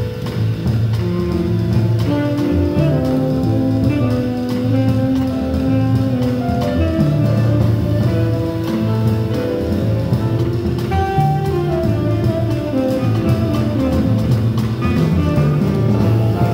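Live jazz quartet playing: a tenor saxophone carries a melody of held notes over piano, upright bass and a drum kit with cymbals.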